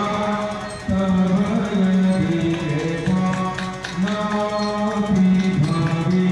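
Harmonium playing a devotional melody in long held notes, with singing.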